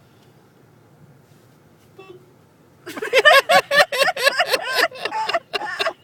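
A brief faint beep about two seconds in, then, about three seconds in, loud excited voices break out in rapid bursts of laughing and shrieking.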